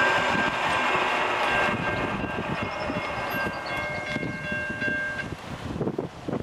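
Diesel locomotive air horn on a GE AC6000CW leading a freight train, sounded as one long chord-like blast as it approaches a grade crossing, over the rumble of the oncoming train. The horn cuts off about five seconds in.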